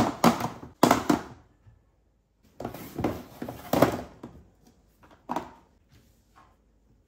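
Plastic food storage containers being set down and pushed into place on a cupboard shelf: a few sharp knocks, then a stretch of scraping and clattering, and lighter knocks near the end.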